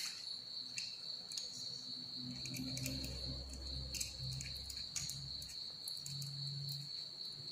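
Faint small clicks and ticks of a screwdriver and copper wire being worked into the screw terminal of a plastic modular switch, while the neutral wire is connected, over a steady high-pitched insect-like tone.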